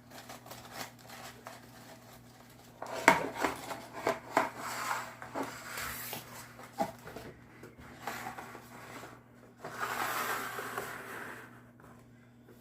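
Hand rummaging in a Pringles can for an unbroken chip: the stacked crisps click, crackle and rattle against each other and the tube. The sharpest clicks come from about three seconds in to about seven, with a softer rustle around ten seconds.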